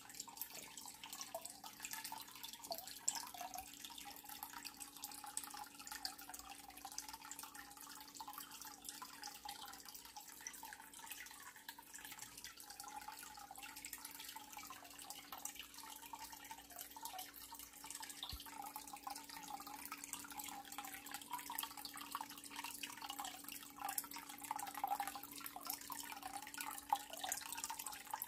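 Faint, steady dripping and trickling water, with a low steady hum beneath it.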